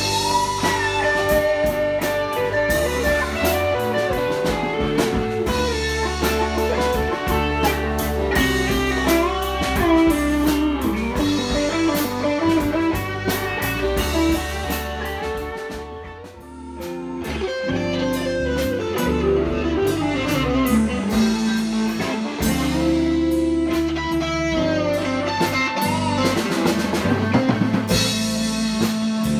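Live band playing an instrumental passage: electric guitar lead lines with string bends over bass guitar and drum kit. The playing dips in volume briefly about halfway through, then comes back up.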